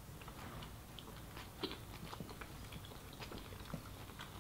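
Two people chewing mouthfuls of sushi roll close to the microphone: faint, irregular wet mouth clicks and smacks.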